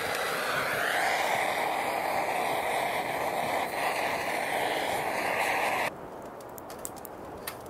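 Handheld butane torch burning with a steady jet hiss, its flame held to kindling; it cuts off suddenly about six seconds in, followed by a few faint clicks.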